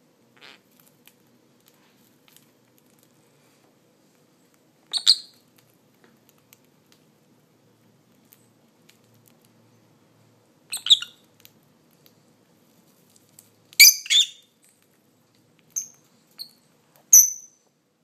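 Peach-faced lovebirds giving short, sharp, high-pitched chirps, about six calls with pauses between them, the first about five seconds in and the loudest pair about fourteen seconds in, with faint small ticks in the gaps.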